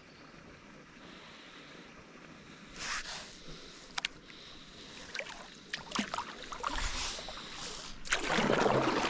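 Kayak paddles dipping and splashing in river water in irregular strokes over a soft hiss, picking up and getting louder near the end.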